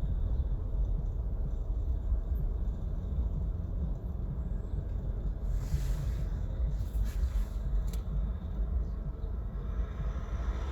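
Car being driven with a window open, heard from inside: a steady low rumble of road and wind noise. There is a brief swell of hiss about halfway through and a couple of faint ticks soon after.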